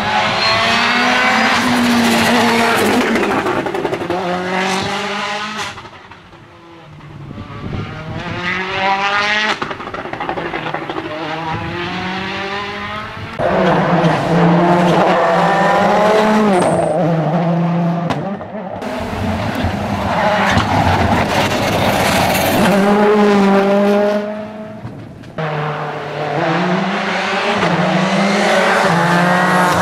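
Rally cars at full throttle on a tarmac stage, engines revving up and dropping back repeatedly as they brake and accelerate through the bends. The sound breaks off and restarts abruptly several times as one car's run gives way to the next.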